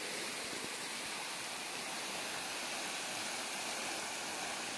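A river in flood rushing steadily, its fast muddy water pouring around tree trunks in a constant, even rush.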